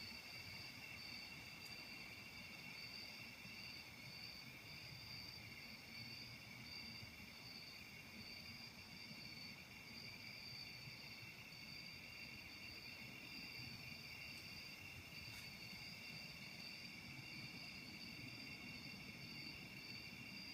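Faint, steady chorus of insects calling in the woods: an even high shrill note, with a higher note above it that pulses.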